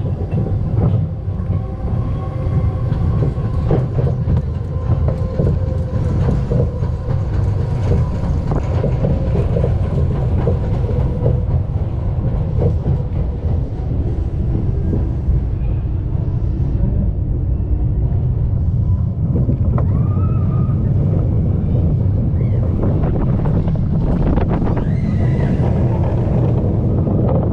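An Intamin family roller coaster train running along its track, with a steady heavy rumble of wheels on steel rail.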